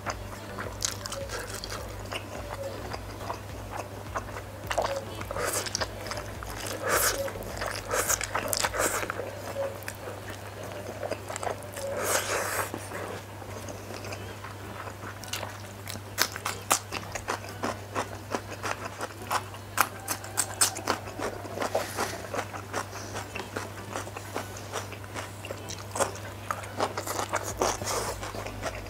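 Close-up eating sounds of instant noodles: chewing, wet mouth clicks and several slurps, the loudest a few seconds apart in the first half, with a wooden fork scraping and tapping on a wooden tray. A steady low hum runs underneath.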